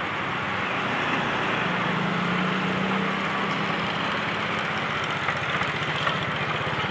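Diesel-electric locomotive (CC206) running as the train approaches slowly. Its engine gives a steady low hum that swells for a couple of seconds, over a wide even rushing noise.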